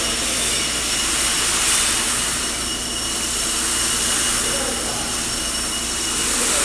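A Probat G75 75 kg drum coffee roaster running with its burner lit while it heats up: a steady rushing of fans and flame, with a couple of thin steady high whines and a low hum underneath.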